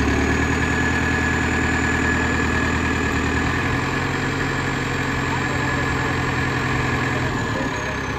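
Tractor diesel engine with a newly fitted turbocharger running steadily. Its engine speed steps up about three and a half seconds in and drops back near the end, with a thin high turbo whistle above the engine note that rises and then falls away.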